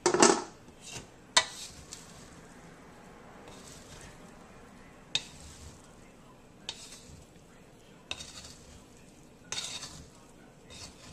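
A spatula stirring and scraping fried rice around a wok over a faint sizzle. There is a loud scrape right at the start, then single scrapes and clinks against the pan every second or two.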